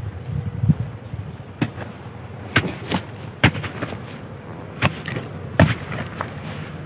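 A metal digging blade striking and chopping into hard, dry clay soil: about seven sharp knocks at irregular intervals, a second or so apart.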